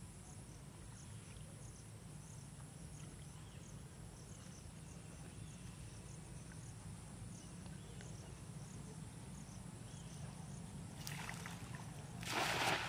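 Cast net thrown over a pond: a short swish about a second before the end, then the spread net and its weights hitting the water in a brief, louder splash near the end. Before that there is only a steady low background hum.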